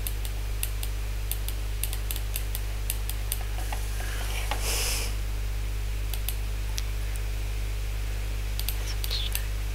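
Scattered clicks of a computer mouse and keyboard over a steady low hum, with a brief hiss about halfway through.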